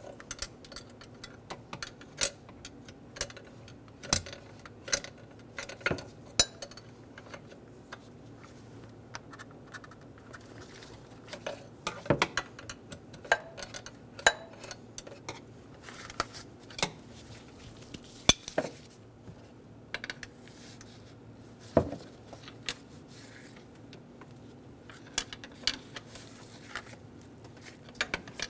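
Hand tools clinking on metal: a wrench and a flat-blade screwdriver knocking against the fan clutch nuts and pulley as the nuts are broken free, in irregular sharp taps and clicks, some ringing briefly.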